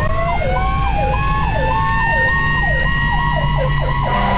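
Fire engine's sirens running on an emergency response, heard from inside the cab over the engine's rumble. One siren sweeps up and down about twice a second and switches to a faster warble near the end. A second siren tone glides up in pitch and then holds a steady high note.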